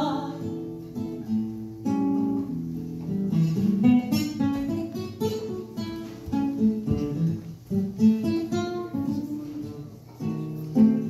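Nylon-string classical guitar playing an unaccompanied tango interlude, a run of plucked notes broken by sharp strummed chords.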